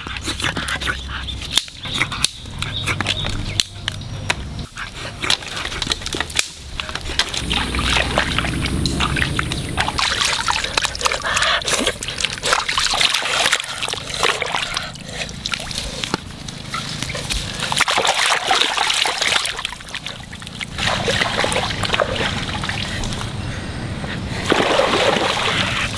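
Water splashing and sloshing in uneven bursts, with scattered short clicks and knocks.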